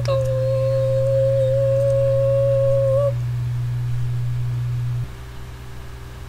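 A woman humming, ending on one long held note that stops about three seconds in. A steady low hum runs underneath and drops away about five seconds in.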